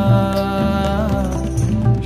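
Hindi devotional song to Lord Shiva playing as background music: sustained melodic tones over a steady low beat.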